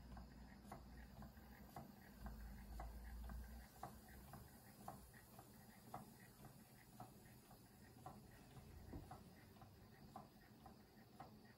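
Stuart Turner 'Williamson' model vertical steam engine running slowly, giving a faint, even ticking of about two beats a second. A low rumble fades out about four seconds in.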